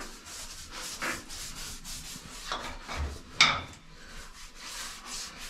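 Cloth in a gloved hand being rubbed over steel hull plating, a stroke about every second, with one sharper knock about three and a half seconds in.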